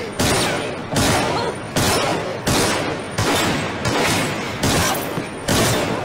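Underwater rushing and churning picked up by a camera in the water, with a diver's movements around a speared octopus stirring it up: about eight loud surges, each starting sharply and fading, roughly one every 0.8 seconds.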